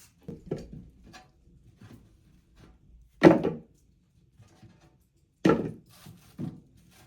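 Scattered light knocks and clatter of objects being handled, with two louder thumps, one about three seconds in and one about five and a half seconds in.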